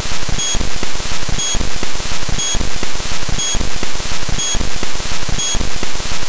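Background music with a steady beat about once a second, under a harsh hiss-like noise.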